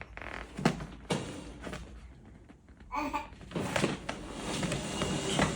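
A few sharp knocks and clicks, then rustling and scraping handling noise, with a brief pitched voice-like sound about three seconds in.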